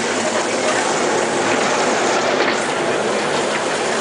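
Small kiddie-ride train running along, giving a steady, even mechanical noise without pauses.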